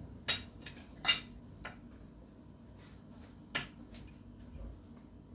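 A metal fork clinking against a ceramic plate: two sharp clinks in the first second or so, a lighter one soon after, and one more past halfway.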